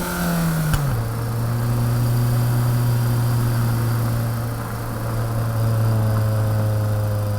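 Motorcycle engine running on a ride, its pitch dropping about a second in and then holding steady, with a couple of sharp clicks in the first second.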